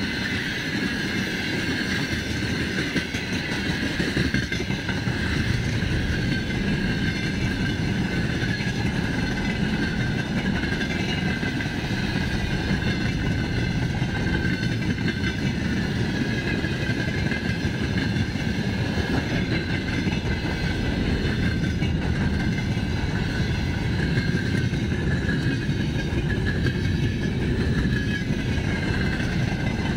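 Wagons of a long freight train rolling past at speed: a continuous rumble of steel wheels on the rails with a steady high-pitched ring over it.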